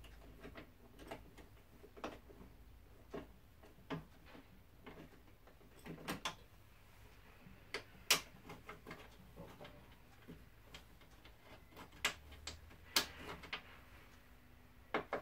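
Irregular clicks and light metallic knocks from hands and parts working inside a car door's metal shell while a window regulator is fitted, with a few sharper clacks about 8 and 13 seconds in.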